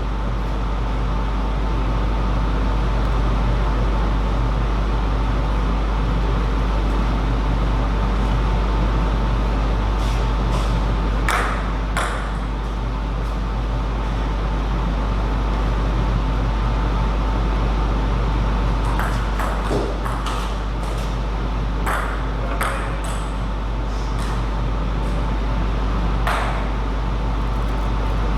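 Table tennis ball clicking off rackets and the table in two short rallies of sharp ticks, one about a third of the way in and a longer one in the second half, over a steady low hum.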